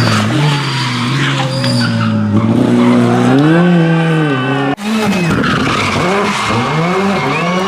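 Rally car engine running at high revs, its pitch rising and dropping through gear changes. About five seconds in the sound breaks off abruptly and a rally car engine carries on, revving up and down quickly.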